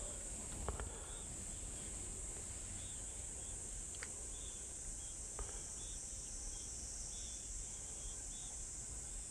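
Insects trilling in a steady high-pitched chorus, with short chirps repeating every half second or so over it and three faint clicks.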